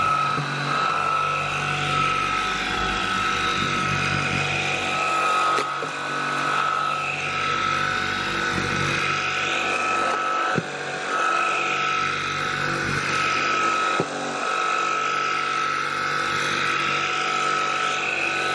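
NEEBo PUPPY T10 Home cordless stick vacuum running, its motor whining steadily as the floor head is pushed over a hard floor, sucking up crumbs and flour. The whine dips briefly a few times, and there are two sharp clicks in the second half.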